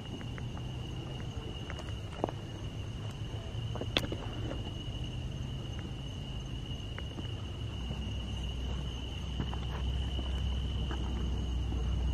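Steady high-pitched chorus of night insects such as crickets, with footsteps on grass and camera handling underneath, and a sharp click about four seconds in.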